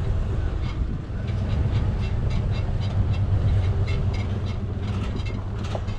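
Vehicle engine running steadily under load while pulling a stuck car out of snow. Rapid irregular clicking and squeaking runs over the engine from about half a second in.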